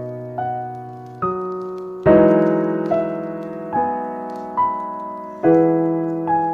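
Slow solo piano: single notes and chords struck about once a second and left to ring and fade, with the loudest chord about two seconds in.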